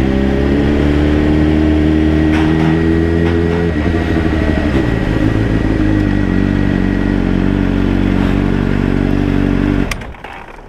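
Honda CBR600RR's inline-four engine at low speed. Its pitch creeps up, then drops as the throttle closes about four seconds in. It then runs low and even until it is switched off and cuts out suddenly near the end.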